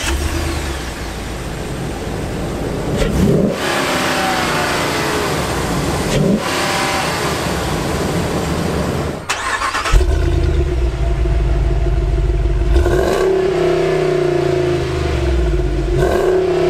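Ram Power Wagon's 6.4-liter Hemi gasoline V8 running, with short throttle blips at about three and six seconds in. The sound cuts briefly near the middle, then the engine runs again with more revs in the second half.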